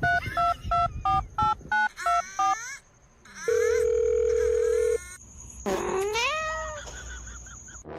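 Phone keypad beeps in quick succession, about three a second, then a single steady tone for about a second and a half. Near the end a cat meows once, its pitch dipping and then rising.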